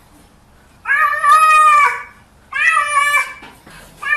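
Large grey-and-white cat meowing loudly while held up under its front legs: two long, drawn-out meows of about a second each, with a third starting at the very end.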